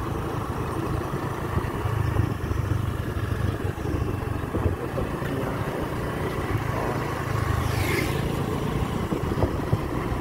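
Two-wheeler's engine running steadily as it is ridden along a road, with wind and road noise on the microphone. A brief higher-pitched sound comes about eight seconds in.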